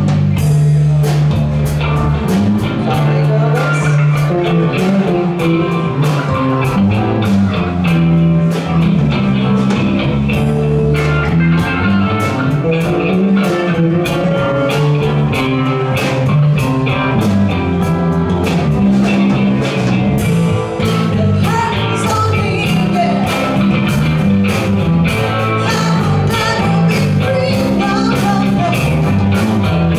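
Live band playing a rock song: guitar, a moving bass line and drums keeping a steady beat, with singing.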